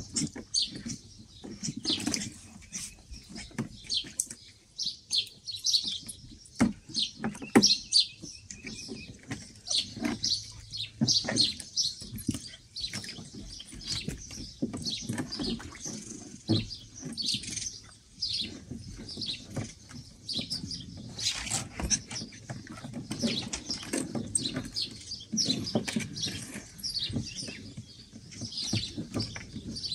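White Swiss Shepherd puppies playing in and around a plastic paddling pool: scattered knocks and scrabbling, with a steady stream of short high chirps and squeaks. The loudest knock comes about seven and a half seconds in.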